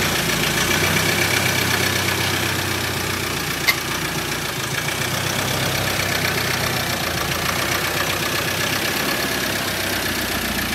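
The freshly reconditioned 2.2 TDCi four-cylinder diesel engine of a 2013 Ford Ranger runs steadily at low revs as the pickup is driven slowly. A single sharp click comes about three and a half seconds in.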